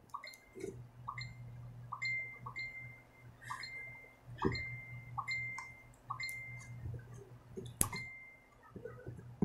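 A mobile phone chiming over and over with incoming message notifications: short high beeps about twice a second, over a steady low hum. A sharp click near the end.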